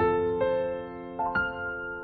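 Background music: soft piano or electric piano notes struck a few at a time and left to ring, fading out near the end.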